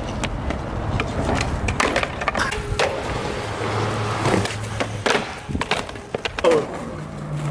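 Skateboard wheels rolling on concrete, with several sharp clacks of the wooden deck striking the ground.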